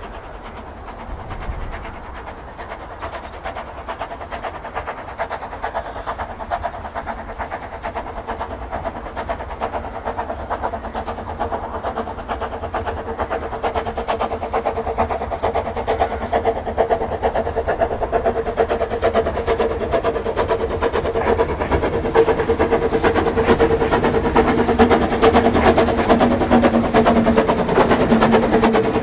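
Talyllyn Railway narrow-gauge (2 ft 3 in) steam locomotive approaching under steam, working hard. Its exhaust beats and running noise grow steadily louder as it nears, over a steady low tone.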